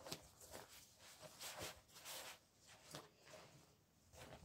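Near silence, with a few faint, short rustles of quilted foil thermal window mats being handled.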